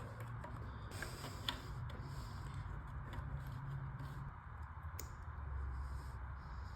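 Faint clicks and light scraping from hand-work on the weedeater's small plastic and rubber fuel parts, over a low steady hum; the sharpest click comes about five seconds in.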